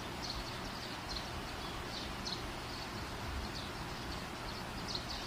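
Quiet background ambience: a steady hiss with scattered short, high chirps.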